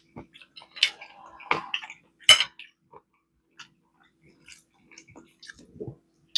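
Eating utensils clinking and tapping against a plate: a few sharp clicks, the loudest in the first two and a half seconds, then quieter ticks.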